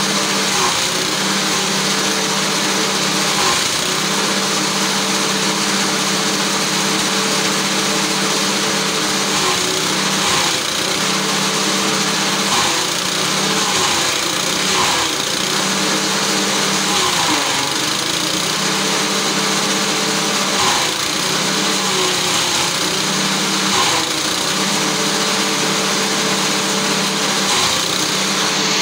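Forage chopper (mesin cacah) driven by a small engine, running steadily while corn stalks are fed through its blades. The engine's note sags and wavers briefly several times as bundles are pushed in, with a crackle of stalks being cut.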